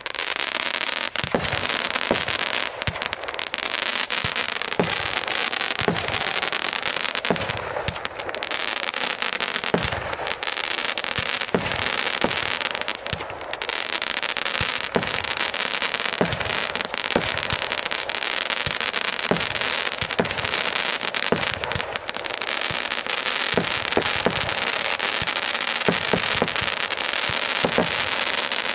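A Zeus Fireworks Falcon Frenzy 25-shot barrage cake firing shot after shot, about one a second, each launch a sharp thump, over a continuous hiss of burning effects.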